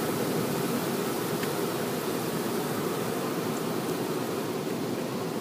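Automatic car wash water spray hitting the car's windshield and body, a steady rushing noise heard from inside the car.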